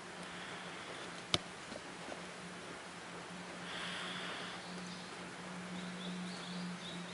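Light, gentle rain falling as a steady soft hiss, with one sharp drip-like tick about a second in and a few faint high chirps near the end.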